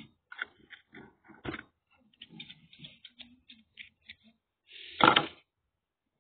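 Small scissors snipping the cotton wick ends on a rebuildable atomizer: light clicks and snips scattered through, with a short louder rustle about five seconds in.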